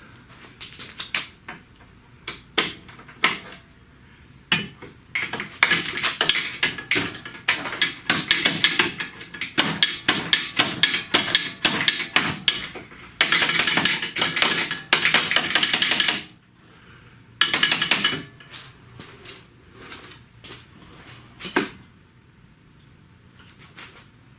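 Metal hand tools knocking, tapping and clanking against the steel frame and control arm. There are scattered knocks early on, then a long run of rapid metallic taps and clinks from about five seconds in to about sixteen seconds, and another short rapid run around eighteen seconds.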